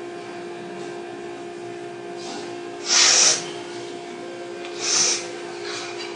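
A person breathing in sharply twice with a hiss, about two seconds apart, over a steady hum.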